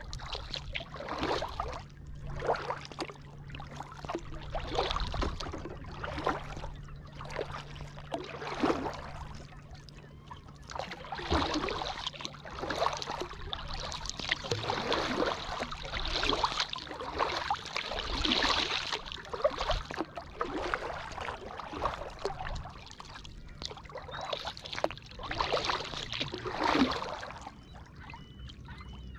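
Kayak paddle strokes in a steady rhythm: the blades dipping and pulling through the water, with splashes and drips about once a second.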